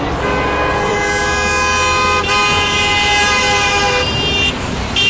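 Car horns honking in long, steady blasts over a low street rumble. One horn sounds from just after the start, a second, higher horn joins about two seconds in, both stop shortly before the end, and another honk starts right at the end.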